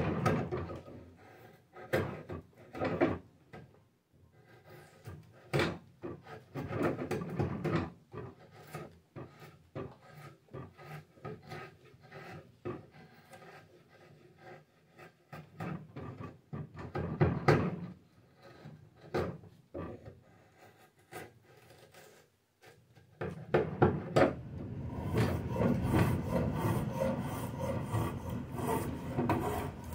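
Drawknife pulled along a cherry stick, peeling off the bark in separate scraping strokes with pauses between them. About two thirds of the way through, a spokeshave takes over with quick, nearly continuous shaving strokes across the wood.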